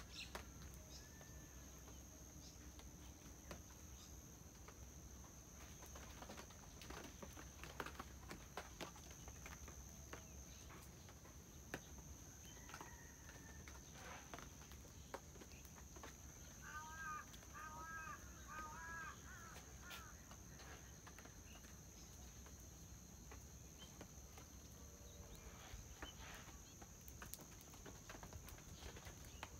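Quiet rural morning ambience: soft, scattered footsteps on a brick path, and a bird giving a quick run of repeated chirps a little past the middle. A faint, steady high tone runs underneath.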